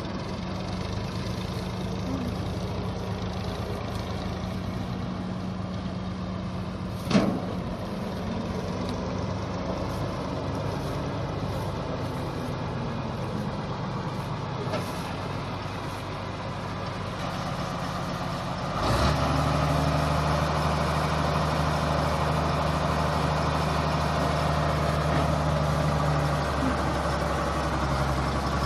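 Diesel engines of a New Holland combine harvester and a tractor running steadily, with one sharp knock about 7 s in. About two-thirds of the way through the sound turns suddenly louder, with a steadier, deeper engine hum, as the combine works close by, unloading grain through its auger.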